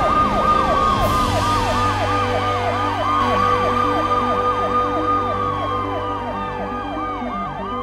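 Several police car sirens sounding together: a fast yelp sweeping up and down about four times a second over slower wails that rise and fall every few seconds, with a steady low hum underneath. A short hiss comes about a second in.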